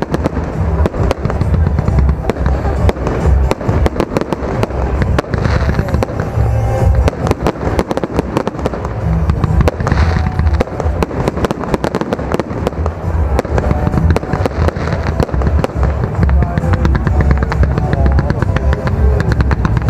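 Aerial fireworks display: a dense, continuous barrage of shell bursts and crackling, with deep booms underneath.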